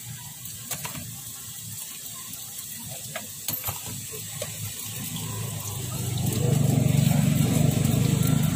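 Light clicks and taps of a metal skewer against a cast-iron takoyaki pan as the balls are turned. About six seconds in, a low engine rumble swells up and becomes the loudest sound.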